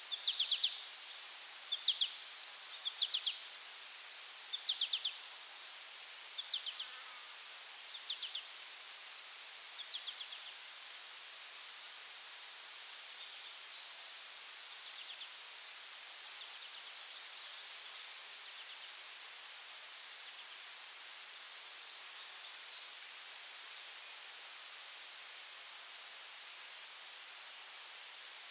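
Daytime forest ambience of insects: a steady high-pitched drone with a faster pulsing chirp beneath it. During the first ten seconds, short trilled calls come about once a second and then fade away.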